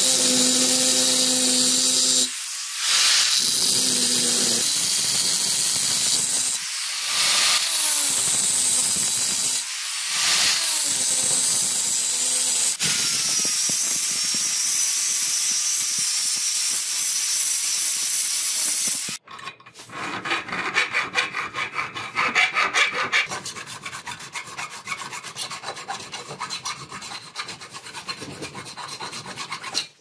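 Angle grinder with a cutting disc running and cutting into a metal knife-handle blank clamped in a bench vise, steady with a few brief dips as the disc comes off the work. About two-thirds of the way in it gives way to rapid back-and-forth hand strokes on metal held in the vise.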